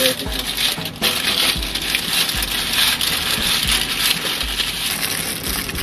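Thin plastic bag crinkling and rustling continuously as it is worked around a spin-on engine oil filter.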